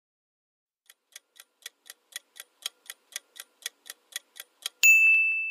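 Countdown-timer sound effect: a clock ticking about four times a second, starting about a second in. Near the end a loud, bright chime sounds and rings on, marking the end of the guessing time.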